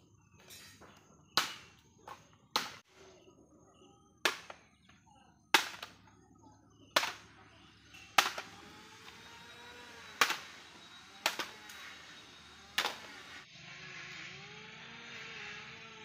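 Dead wood being struck hard while firewood is gathered: about ten sharp blows, roughly one every second or so, then stopping.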